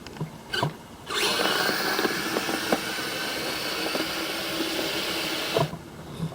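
Kyosho Blizzard RC snowcat's brushless electric motors and drivetrain running under load as it pushes snow, a high, hissing power-tool-like whine with scattered clicks that starts about a second in and cuts off near the end.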